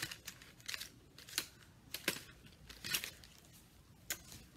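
Plastic packaging of a pack of gel pens crinkling as it is handled and put away, with scattered light clicks and knocks.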